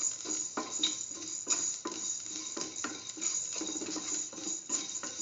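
A spoon stirring and scraping shallots and mustard seeds frying in oil in a stainless steel pan, about three strokes a second, over a light sizzle.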